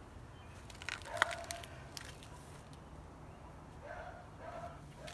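A few sharp clicks and taps about a second in as a replacement rear quarter-panel window glass is pressed by hand into its frame, then three short calls near the end.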